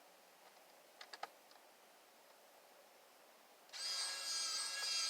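Hyper Tough 4-volt cordless precision screwdriver's small electric motor whining steadily, driving a tiny screw back into a battery cover; it starts near the end, after a few faint clicks about a second in.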